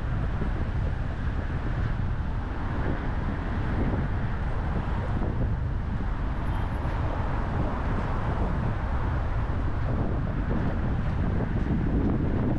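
Steady road noise of a car driving: a low tyre and engine rumble with wind noise, and no single event standing out.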